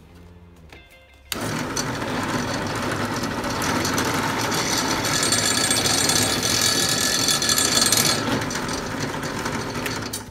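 Benchtop drill press switched on about a second in, its motor running while the bit drills into a wooden block. The cutting is hissiest in the middle, and the noise drops off just before the end.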